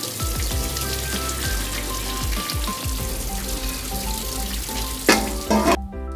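Spaghetti and its cooking water poured through a plastic colander into a stainless steel sink: a steady splashing hiss, with a louder surge of splashing about five seconds in. Background music plays underneath.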